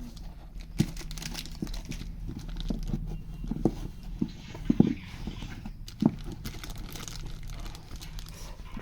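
Things being handled in a small room: rustling and crinkling with scattered sharp knocks. The loudest knocks are a quick pair near the middle and one about six seconds in, over a steady low hum.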